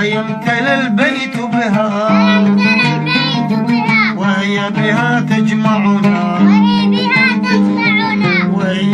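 Music of a children's song with no words: a melody that bends and slides in pitch over a steady low accompaniment.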